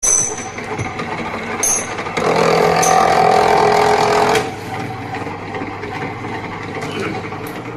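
Electric wire stripping machine running and slitting the PVC sheath of a cable fed through it. The machine is loud, and it is louder and busier for about two seconds in the middle before settling back to a steady run.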